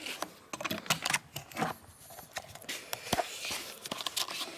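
Irregular handling noise: light clicks, taps and rustling, with one sharper knock about three seconds in.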